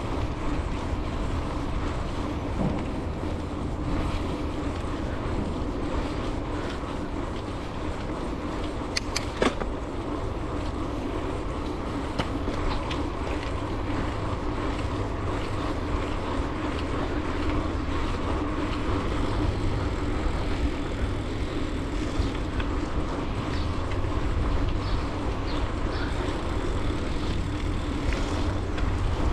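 Wind rushing over the microphone and the rumble of bicycle tyres rolling along a paved trail, steady throughout, with a couple of sharp clicks about nine seconds in.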